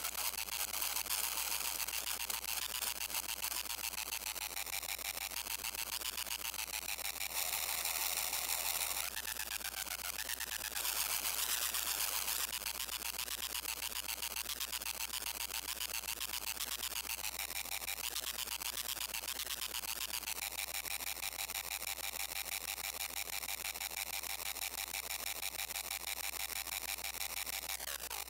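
Modular synthesizer playing a harsh, buzzing noise texture of rapid pulses with tones gliding up and down, its character shifting abruptly several times, around nine, twelve and twenty seconds in.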